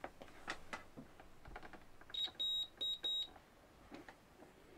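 Digital multimeter in continuity mode beeping four times in quick succession, a steady high tone, as its probes touch a freshly soldered connection: the beep signals that the joint conducts. A few faint taps before the beeps.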